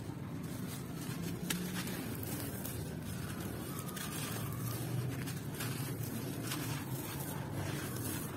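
Dry sand-cement discs crumbling in bare hands and gritty sand and gravel pouring through the fingers: a continuous crunching, trickling hiss with sharp crackles here and there. A low steady hum runs underneath.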